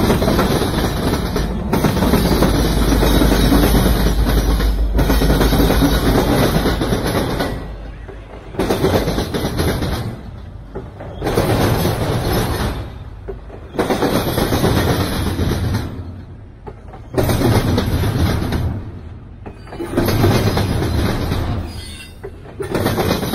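Freight train passing close. A deep diesel rumble from the EMD SD70ACe locomotive lasts for about the first seven seconds. Then double-stack container well cars roll by, their wheels clattering in loud surges about every three seconds.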